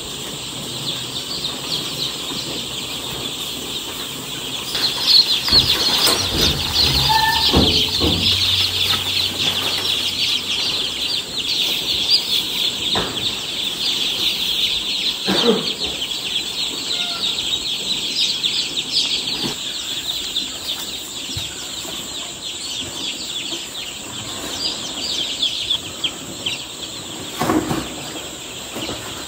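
A crowd of newly hatched chicks peeping: many short, high calls overlapping in a continuous chorus, with a few dull knocks.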